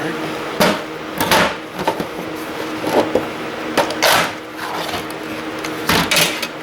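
Metal parts of a server power supply being handled and taken apart by hand: a series of irregular clicks and clanks, with a steady faint hum underneath.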